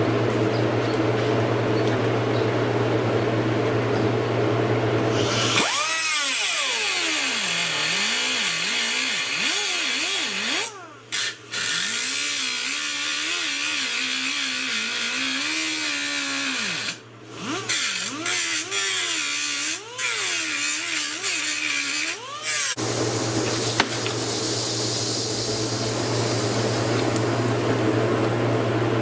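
Handheld power grinder cutting off the metal fasteners on a tail light's chrome trim. Its pitch sags and recovers as it bogs under load, with two brief breaks. It starts about six seconds in and stops a few seconds past the middle, leaving a steady background hum.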